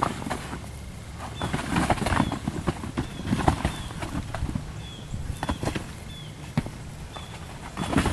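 Dogs romping on grass around a fabric agility tunnel: irregular thuds and scuffles of running paws, with faint short high chirps repeating in the background.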